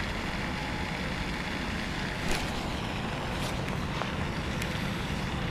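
Steady outdoor noise with a buffeting low rumble, like wind on the microphone, and a few faint ticks.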